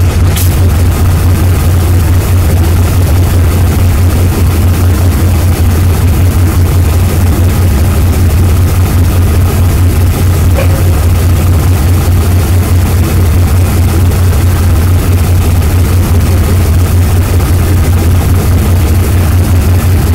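Diesel locomotive running steadily with a loud, constant low drone, with a brief click just after the start.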